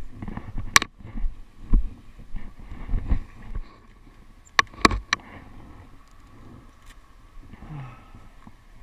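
Sharp clicks and clacks as a motorcycle's locking fuel cap and the gas pump are handled. There are a few knocks in the first three seconds, and the loudest is a quick run of three clicks about four and a half to five seconds in. After that a low steady hum.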